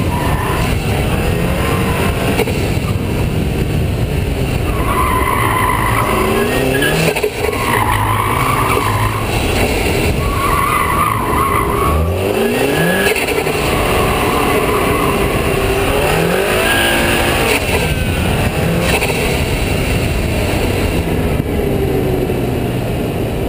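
Tuned turbocharged 2.0 TSI four-cylinder of a 2009 VW GTI, with an APR Stage 2+ tune and a 3" downpipe, driven hard through an autocross course. Its pitch rises under acceleration several times, and the tyres squeal in repeated bursts through the turns.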